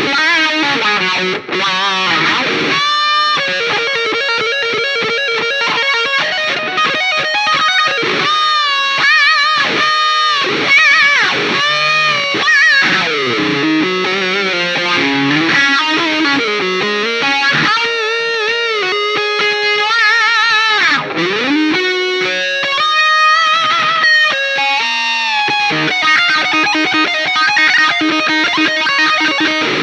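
Electric guitar played through a Mooer GE 150 Pro multi-effects processor: melodic lead lines with frequent string bends and wide vibrato.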